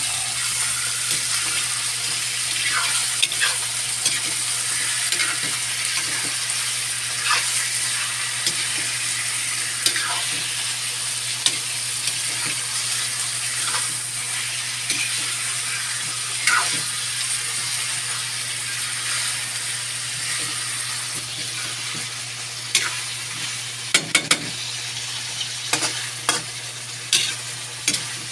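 Raw chicken pieces sizzling in hot oil in a wok, with a steady frying hiss. A spatula stirring them scrapes and clicks against the pan every second or two, more often in the last few seconds.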